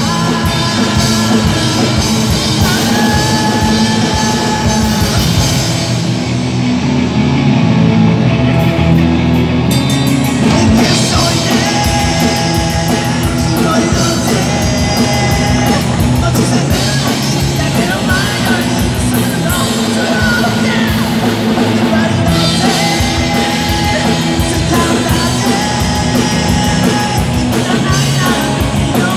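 Live rock band playing loud: distorted electric guitars, bass guitar, drum kit and a violin line on top. About six seconds in the cymbals drop out for a few seconds, leaving guitars and bass holding a low note, and the full band comes back in about ten seconds in.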